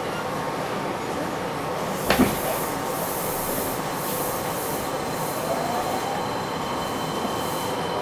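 Fukuoka City Subway 2000-series train with IGBT-VVVF drive, heard from inside the car: steady running noise, a sharp knock about two seconds in, and a faint tone from the drive rising in pitch after about five seconds as the train gathers speed.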